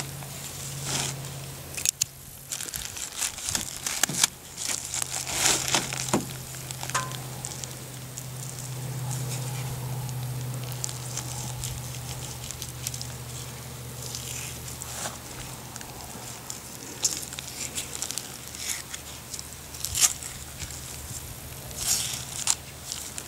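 Plastic bag crinkling and rustling in irregular bursts as a plastic-wrapped beef roast is cut open with a knife and handled. A steady low hum runs underneath.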